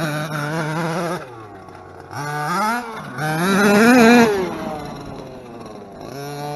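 Zenoah G320 32cc two-stroke engine with a race-ported head on a 1/5-scale Redcat Rampage MT, running at high revs, dropping off throttle about a second in, then revved up twice with the pitch rising, loudest about four seconds in. It falls away again and settles back to steady high revs near the end.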